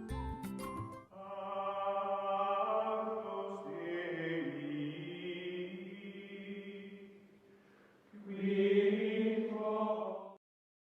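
Outro music of chant-like voices singing two long held phrases. The second phrase cuts off suddenly near the end. A brief plucky music passage comes just before the voices.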